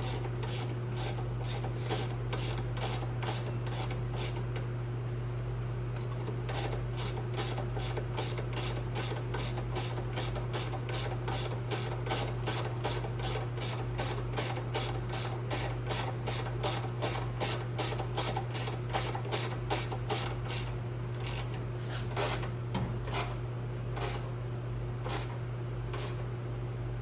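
Hand ratchet wrench clicking in long, even runs of about three clicks a second as bolts are tightened, with a quicker, louder stretch in the middle and brief pauses near the end. A steady low hum runs underneath.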